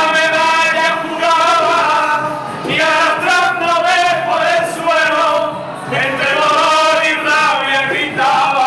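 A group of men singing loudly together, holding long notes.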